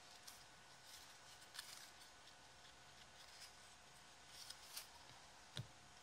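Mostly near silence, with a few faint clicks and taps of a stack of trading cards being handled and set down on a wooden table; the plainest tap comes near the end.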